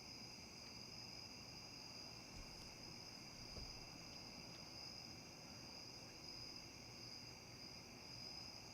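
Faint, steady chorus of night insects: a continuous high-pitched trilling drone with a second, lower band beneath it.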